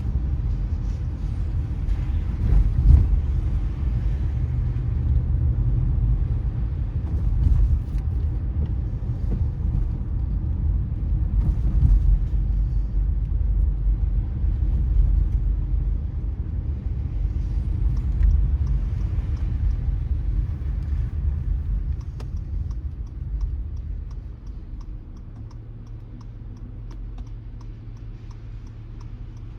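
A car driving on a wet road, heard from inside, with a steady low rumble of tyres and road. Near the end the rumble eases off as the car slows, leaving a low engine hum and a light, regular ticking of about three ticks a second.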